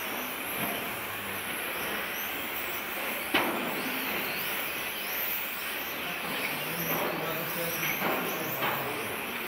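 1/10 scale electric RC touring cars with 17.5-turn brushless motors racing: a high motor whine rising and falling as the cars accelerate and brake, over a steady hiss of tyres on the track. A single sharp knock comes about three and a half seconds in.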